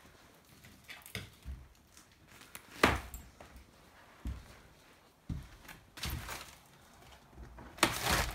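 Footsteps and irregular thumps and knocks on a rotting wooden floor strewn with debris, a floor that is starting to sink. The loudest knock comes about three seconds in, and a loud cluster of knocks comes near the end.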